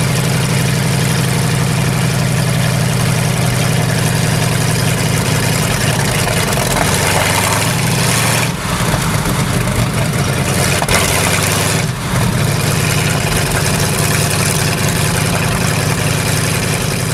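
Tank engine sound effect running steadily with a deep, even throb, dipping briefly twice in the middle.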